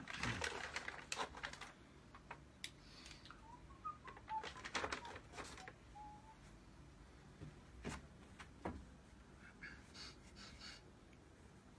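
Paper carrier bag rustling and crinkling in scattered bursts as hands rummage inside it, then a few sniffs near the end.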